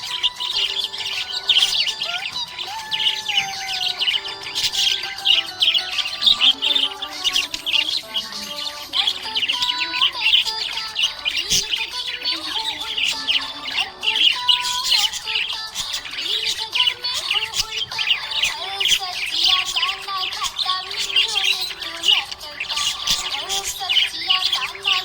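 Several budgerigars chirping and chattering continuously, a dense stream of quick high chirps.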